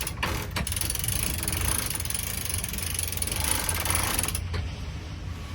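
Sailboat sheet winch being cranked as a sheet is pulled in, its pawls ratcheting; the ratcheting stops about four seconds in. A steady low rumble runs underneath.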